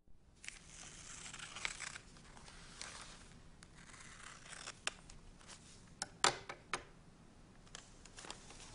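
Faint rustling and scraping with scattered sharp clicks and snips, like small objects or paper being handled. A cluster of louder clicks comes about six seconds in.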